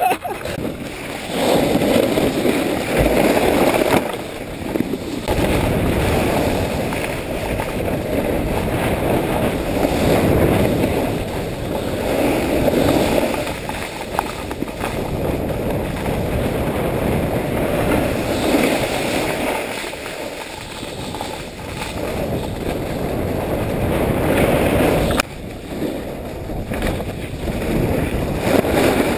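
Wind rushing over an action camera's microphone, mixed with skis scraping and carving over packed snow, rising and falling in surges as the run goes on. The noise drops suddenly near the end.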